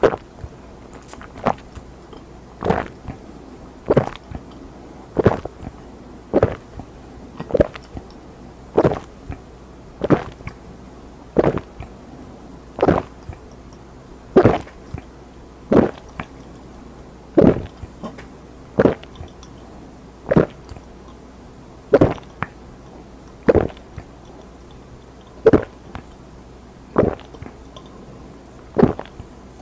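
A person chugging Ramune soda from a bottle in one go: loud, close-miked gulps at a steady pace, about one swallow every second and a half.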